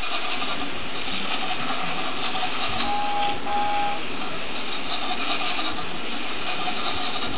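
Battery-operated toy train's small electric motor and plastic gears whirring steadily as it climbs and dips along an up-and-down plastic track. About three seconds in come two short electronic beeps, each about half a second long.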